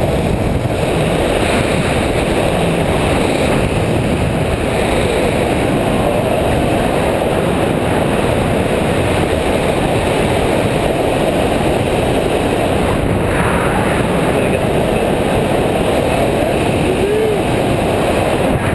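Freefall wind rushing over a GoPro's microphone during a tandem skydive under a drogue chute: a loud, steady roar that does not let up.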